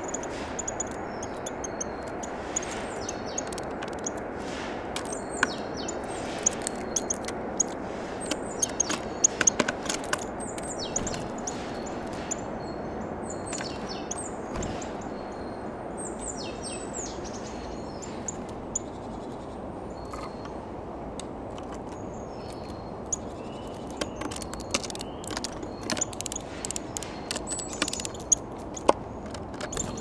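Small garden songbirds calling around a seed feeder: many short, high chirps and repeated call notes, with scattered sharp taps and clicks, over a steady background hum.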